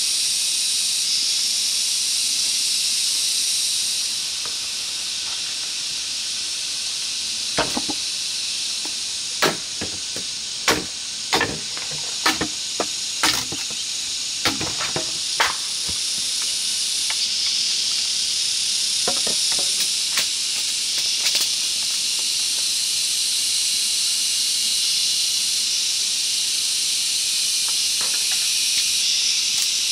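Rainforest insect chorus: a loud, steady, shrill hiss that shifts in level a couple of times. A run of about ten sharp knocks or taps falls in the middle, with a few more later.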